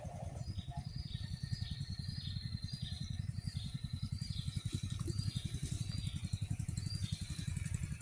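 Small boat engine running with a rapid, steady putter on the water, a little louder in the second half. A high call repeats about twice a second over it.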